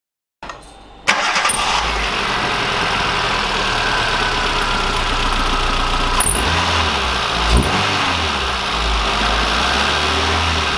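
Hyundai i10 petrol engine starting about a second in and then running steadily at idle with fresh spark plugs, its pitch rising and falling once briefly later on.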